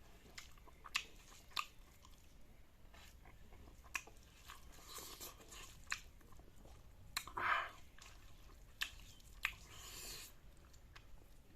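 Close-up chewing and mouth sounds of a person eating a meal of kholar (kidney beans), with scattered short clicks and a longer, louder mouth noise about seven and a half seconds in.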